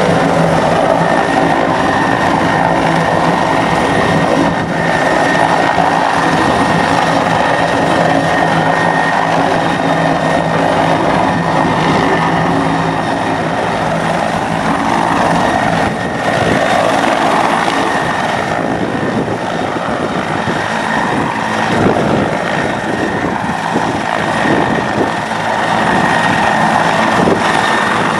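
Rescue helicopter hovering low over the sea and then passing close by: steady rotor and turbine noise with a high whine, loud and unbroken.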